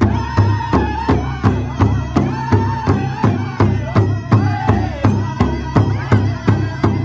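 Powwow drum group singing together with high, held voices over a steady beat on a large hide-covered powwow drum struck with fleece-padded beaters, about three beats a second.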